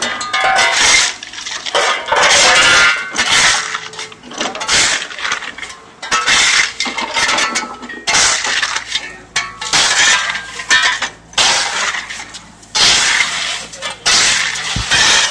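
Steel shovels scraping and scooping dirt and gravel off a paved road surface in repeated rough, clinking scrapes, with a Yanmar mini excavator's diesel engine running low underneath.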